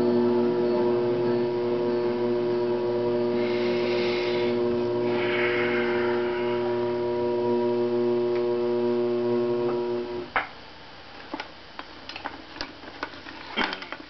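A steady, fixed-pitch hum that cuts off with a click about ten seconds in, followed by a few scattered light taps and clicks.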